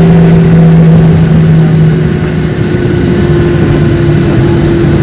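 Cabin noise of a Boeing 737 rolling out on the runway after landing: the jet engines hum with two steady tones that slowly fall in pitch as they spool down, over a low rumble.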